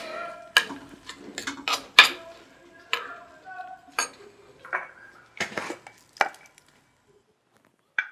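Dishes and cutlery clattering and clinking as they are handled: a string of sharp knocks, some ringing briefly, that stops about six and a half seconds in. One more short click comes near the end.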